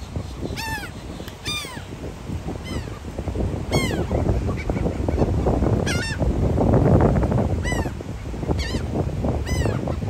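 Laughing gulls calling overhead: short, sharp single calls, each rising and falling quickly in pitch, about one a second, over a steady low rumble.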